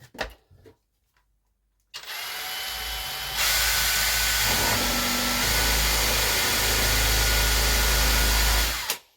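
Electric drill spinning a hole saw and cutting a hole. The motor starts about two seconds in with a steady whine, becomes much louder and harsher a second and a half later as the saw bites into the material, runs steadily and stops abruptly just before the end.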